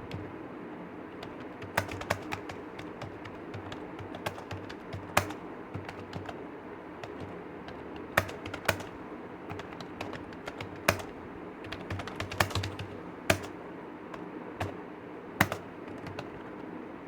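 Computer keyboard being typed on in uneven bursts of key clicks, with a handful of sharper, louder keystrokes standing out over a steady low background hum.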